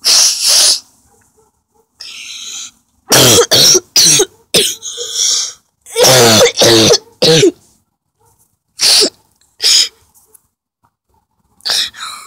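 A person coughing in a series of loud, ragged bursts, several in quick succession about three and six seconds in, with short sharp sniffs near the end.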